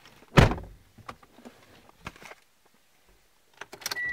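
A car door shuts with a heavy thump about half a second in, followed by a few light clicks and rustles inside the cabin. Right at the end, as the ignition is switched on, a steady dashboard warning chime begins.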